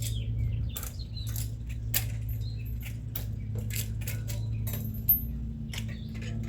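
Irregular metallic clicks and rattles as a mountain bike's rear wheel is fitted back into the frame, with a sharper knock about five seconds in.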